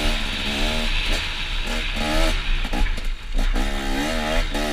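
Motocross dirt bike engine being ridden hard, its pitch climbing through gear changes, briefly dropping as the throttle is shut about three seconds in, then climbing again. Wind noise rushes over the helmet-camera microphone.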